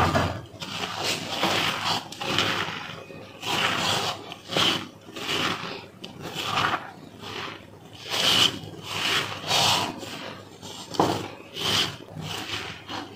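Bare hand mixing and squeezing mashed potato with cornflour and breadcrumbs on a plate: repeated rubbing, scraping strokes, somewhat over one a second.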